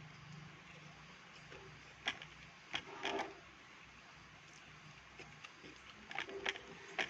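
A person eating rice and noodles: chewing with a few short, sharp mouth smacks and clicks, the loudest about two seconds in, around three seconds, and near the end.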